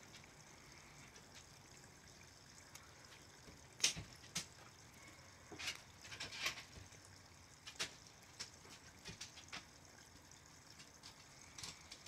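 Small garden-pond waterfall trickling over stones, with a few short, sharp high clicks or chirps scattered through. The loudest comes about four seconds in, and several more follow between six and ten seconds.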